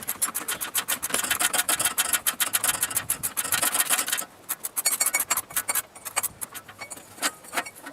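Hand ratchet clicking rapidly as a radiator mounting bolt is backed out, the clicks thinning to scattered ones about four seconds in.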